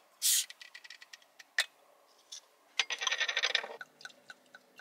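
Crown cap prised off a glass beer bottle with a bottle opener, with a short hiss right at the start and a sharp click about a second and a half in. Then about a second of beer glugging from the bottle neck into a glass, trailing off into faint crackles of foam.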